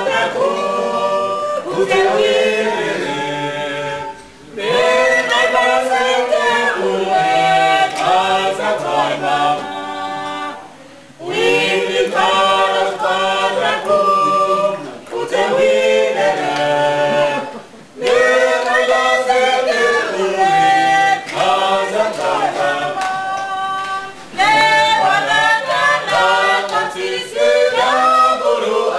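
A small mixed group of men and women singing a folk song a cappella in harmony, in phrases of about six or seven seconds with short breaks between them.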